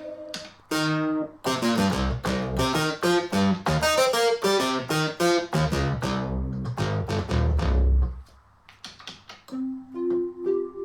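Oberheim Matrix 12 analog polyphonic synthesizer playing a quick run of plucked-sounding notes with deep bass notes underneath. After about eight seconds it drops to a few quieter notes, and held tones come in near the end. The synth is playing cleanly, without the stuck note it had before the repair.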